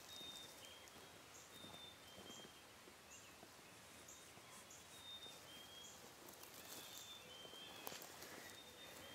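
Near silence, with faint, distant high chirping calls repeating about once a second.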